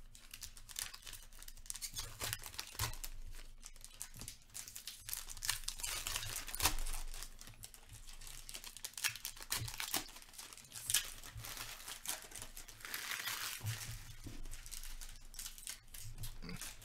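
Foil trading-card pack wrappers being torn open and crinkled by hand, a dense run of sharp crackles and rustles.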